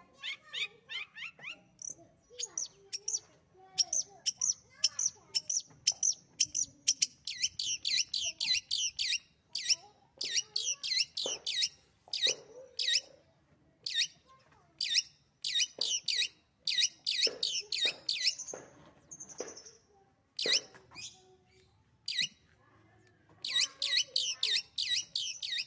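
Long-tailed shrike (cendet) singing in fast runs of short, sharp, high chattering notes, several a second. The runs break off in pauses, the longest about three quarters of the way through.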